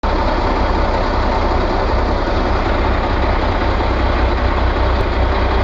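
Excavator's diesel engine running steadily with a deep, even rumble.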